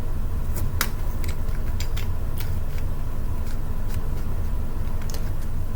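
Scattered light clicks of a plastic Axis Cube puzzle being handled and turned, over a steady low rumble.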